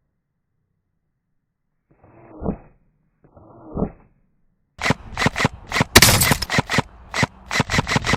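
Airsoft guns firing a quick string of sharp shots, several a second, starting about five seconds in. Before that, silence broken by two short muffled sounds.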